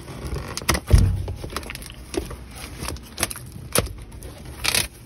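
Cardboard carton and plastic-wrapped packaging being handled and opened: a heavy thump about a second in, then several sharp clicks and a longer scraping rustle near the end.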